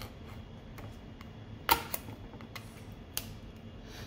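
Screwdriver and fingers working at the cover of a Conner CP30544 hard drive: a series of sharp clicks and taps, the loudest a snap a little under two seconds in, followed by a few lighter clicks.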